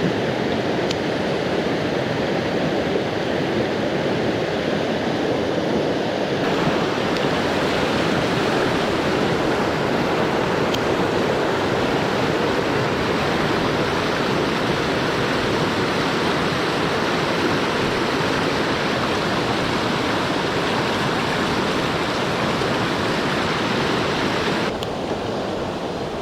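Loud, steady rush of a swollen mountain stream in spate, running water close to the microphone. The sound brightens about six seconds in and dulls again near the end.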